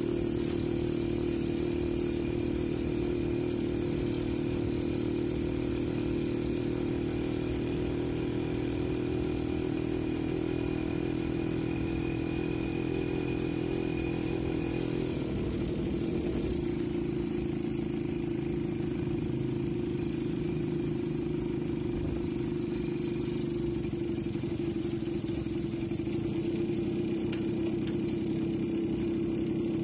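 Motorcycle engine of a tricycle running steadily under way, heard from the sidecar, its note shifting slightly about halfway through.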